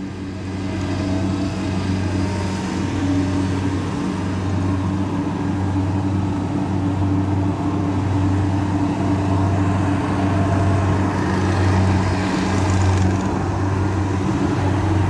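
Kubota DC-60 combine harvester's diesel engine running steadily as the machine drives across the harvested stubble, growing a little louder as it comes closer.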